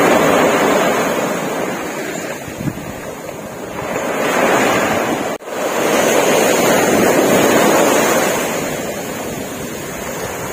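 Sea waves breaking in the surf and washing up a sandy beach, swelling and easing twice, the second surge from about four seconds in.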